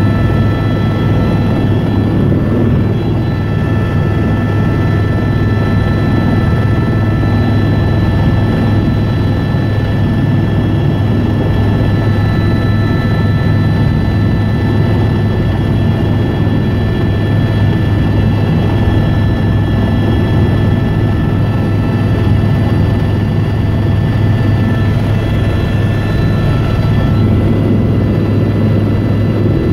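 Helicopter turbine and rotors running steadily, heard from inside the cabin: a constant low drone with several steady high whining tones over it.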